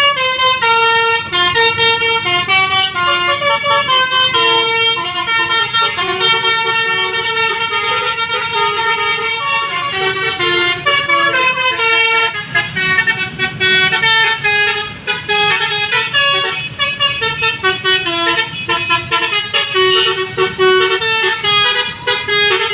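Bus basuri telolet melody horns playing a tune: several horn tones sound together in chords and step from note to note without a break, over a low rumble.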